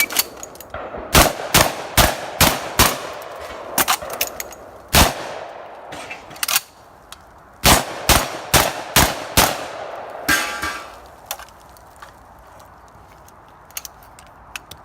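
Typhoon F12 12-gauge semi-automatic shotgun, fitted with a muzzle brake, fired in quick runs of shots, about two to three a second with short pauses, from about a second in until about nine and a half seconds. A brief metallic rattle follows at about ten seconds.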